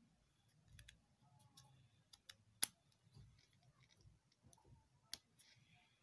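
Faint, scattered clicks as a small MP3 player circuit board and a 3.5 mm audio plug are handled, the plug and switch being worked by hand; the loudest click comes about two and a half seconds in, another about five seconds in.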